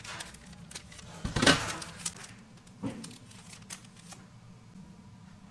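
Kitchen handling sounds: a few separate knocks and clicks, the loudest a short scrape or clatter about one and a half seconds in, over a faint steady hum.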